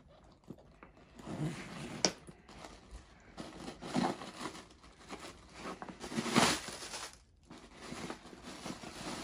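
Plastic packaging crinkling and rustling in several bursts as wrapped items are handled and pulled out from inside a leather handbag.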